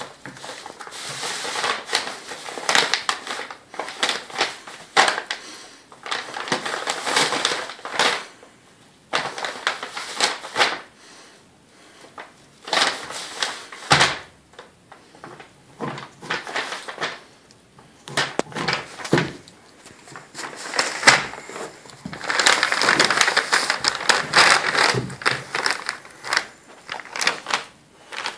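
German Shepherd gnawing and licking a large raw soup bone, with wet crunching and scraping of teeth on bone and meat, and the brown paper beneath it crinkling. It comes in bursts with short pauses, the longest steady run near the end.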